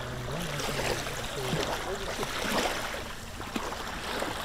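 Small waves lapping and splashing in shallow seawater, with a faint murmur of voices in the first second or so.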